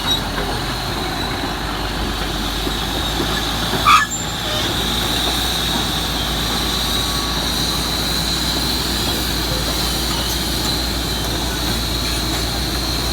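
Komatsu D375A crawler bulldozer's big diesel engine running steadily under load, with the clatter of its steel tracks, and a brief loud squeak about four seconds in.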